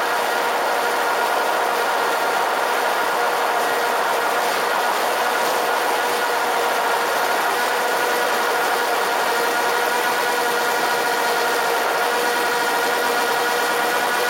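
DJI Spark quadcopter's motors and propellers running in steady flight, a constant whine of several steady tones with a hiss over it. It is heard from a camera strapped directly under the drone.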